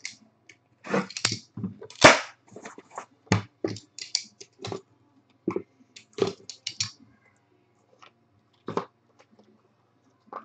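Hands unpacking a trading-card box: a quick run of short rustles, taps and clicks from the cardboard box, the pack and the cards, with one sharp snap about two seconds in. After about seven seconds only a few scattered taps remain.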